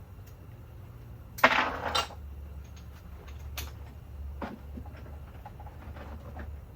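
A metal clatter of parts or tools about a second and a half in, lasting about half a second, followed by a few light clicks and taps over a steady low hum.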